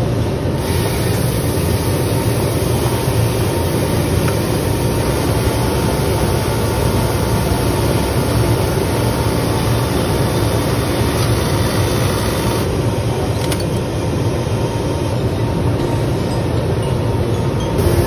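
Automatic bottom-hem station on a Pegasus industrial overlock machine running, a steady mechanical whir of high-speed sewing with no pauses.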